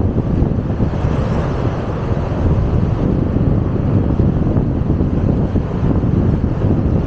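Wind buffeting the microphone of a moving vehicle: a steady, loud low rumble with no distinct engine note.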